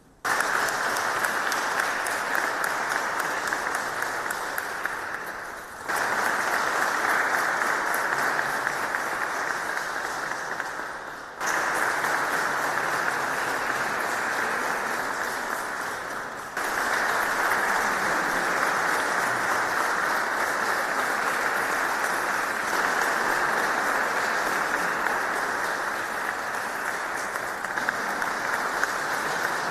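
Audience applauding steadily. The clapping starts suddenly and restarts abruptly three times, each stretch fading a little before the next begins.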